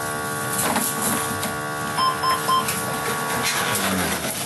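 A patient monitor's steady mechanical whir, like a small printer motor running, with three short electronic beeps about two seconds in. A few light knocks come from leads being handled as the monitor is disconnected.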